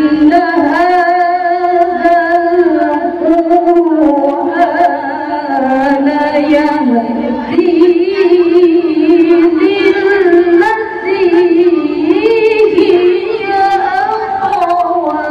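A woman reciting the Quran in the melodic, sung qiraah style through a microphone, holding long notes with fine wavering ornaments and moving up and down through the melody.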